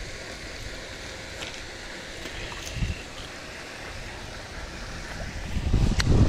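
Wind buffeting the microphone, a low rumble that grows louder near the end, with one sharp click just before the end.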